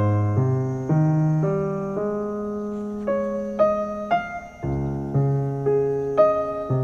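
Background piano music: a slow, gentle melody of single notes, about two a second, over lower held notes.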